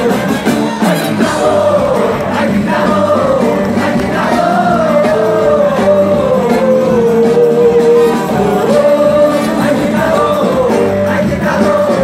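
Live band playing loud, steady music on electric bass, drums and keyboards with a sung lead vocal, the crowd singing and shouting along.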